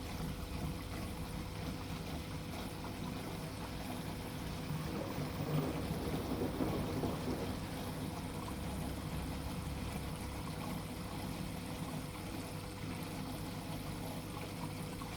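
LG F14A8TDA front-loading washing machine running a tub clean cycle: water moving in the drum over a steady low hum, slightly fuller about halfway through.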